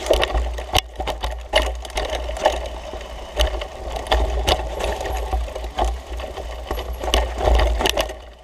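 Mountain bike riding down rough singletrack: drivetrain and frame rattling and clicking, with irregular sharp knocks as the wheels hit bumps and small drops. A steady low wind rumble on the microphone runs underneath.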